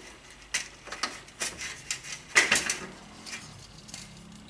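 Plastic fluorescent-tube sockets clicking and clattering against the sheet-steel shop-light housing as they are popped out of it by hand: a handful of sharp clicks, the loudest about two and a half seconds in, then quieter handling.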